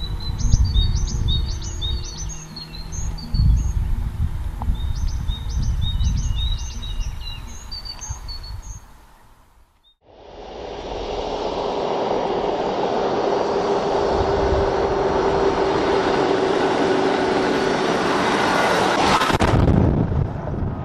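Small birds chirping over a low, gusty rumble. After a brief silence halfway through, a Land Rover Defender drives along a gravel track, its engine and tyre noise building steadily to a loud pass near the end.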